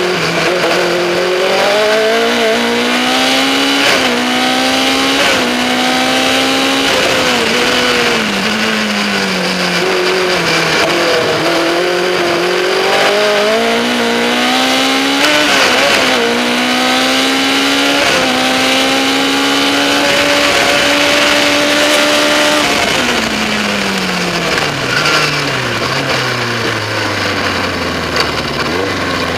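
Engine of a Skoda-engined Lola single-seater race car heard on board at racing speed. Its pitch climbs repeatedly under acceleration and drops at gear changes and lifts. In the last few seconds the pitch falls steadily as the car slows.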